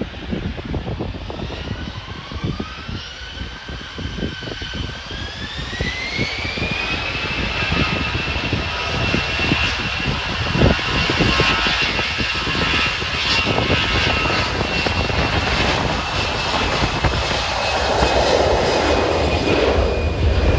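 Airliner engines spooling up, a whine climbing in pitch for several seconds and then holding as a steady high whine over a deep rumble, with a louder rushing roar building near the end. Gusty wind buffets the microphone throughout.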